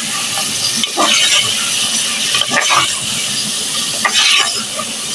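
Chicken pieces sizzling in hot oil in a metal pot while a steel spoon stirs them, scraping against the pot a few times.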